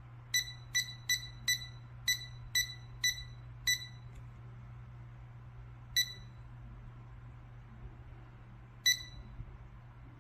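Electronic key beeps from a C-601 digital fridge thermometer as its buttons are pressed to set the alarm: a quick irregular run of eight short, high beeps, then single beeps about six and nine seconds in. A low steady hum runs underneath.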